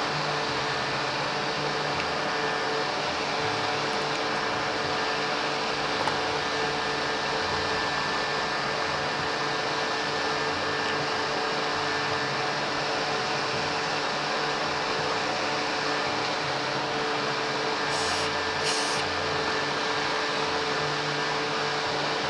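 Steady mechanical hum with an even hiss, like a running fan. Two short, high hisses come close together near the end.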